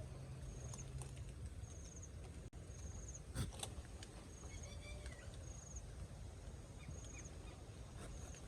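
Outdoor ambience of birds chirping: a short high chirp repeats about once a second, with a brief warbling call partway through, over a steady low rumble. A single sharp knock comes about three and a half seconds in.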